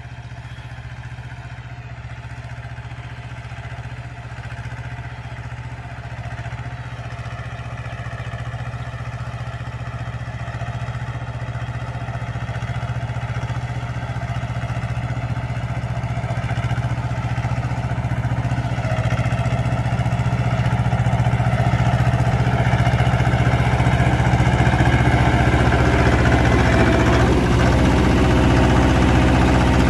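Mahindra Jivo 245 DI 24 HP mini tractor's two-cylinder diesel engine running steadily while pulling a ridger through tilled soil. It grows steadily louder as the tractor comes closer.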